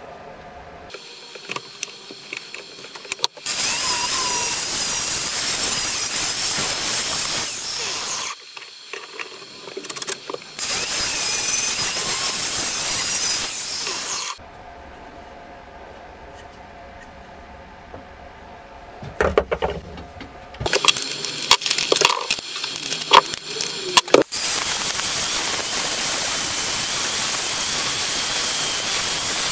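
Angle grinder grinding a steel axe head in three passes: two stretches of several seconds each in the first half, then a longer steady grind that starts about two-thirds of the way in. Between the second and third passes come sharp metal knocks and clicks as the head is clamped in a vise.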